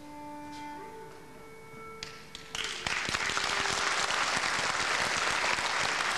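Held notes of instrumental music, then an audience bursts into applause about two and a half seconds in and keeps clapping.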